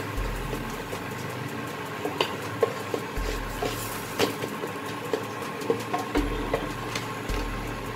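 Steady hum of an induction cooktop's cooling fan, with a series of light taps and scrapes as a flat spatula presses and turns a paratha on the tawa.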